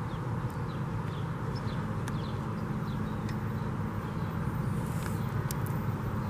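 Outdoor trackside ambience: a steady low rumble with small birds chirping faintly now and then and a few sharp ticks.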